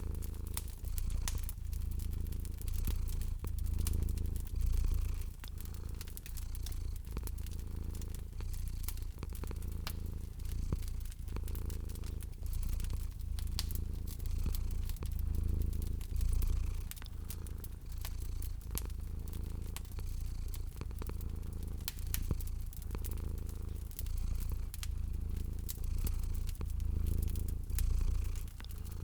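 Cat purring, a steady low rumble that swells and eases in slow waves, with a fireplace fire crackling over it in many small sharp pops.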